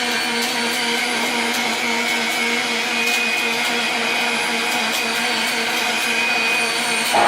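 Steady machine whirring with a constant hum, from the motors of a robotic welding cell with a slider and positioner; it shifts and grows slightly louder near the end.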